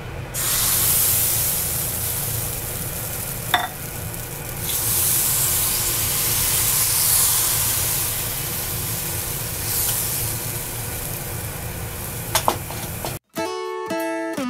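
Hopper batter sizzling steadily in a hot hopper pan as it is poured in and swirled up the sides; the sizzle shows the pan is hot enough. A single clink about three and a half seconds in, a couple of metal clinks as the steel lid goes on near the end, and the sizzle then cuts off abruptly into strummed acoustic guitar music.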